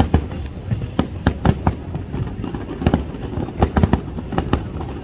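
Aerial fireworks shells bursting in a rapid, irregular string of bangs, about three or four a second, over a low rumble.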